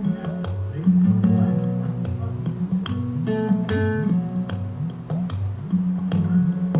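Background music: guitar played with plucked and strummed notes over a low bass line.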